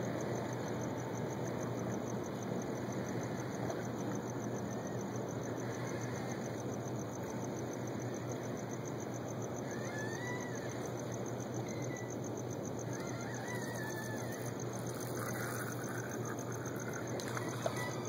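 Steady waterside ambience of water and distant hum, with a few faint short squeaks around the middle.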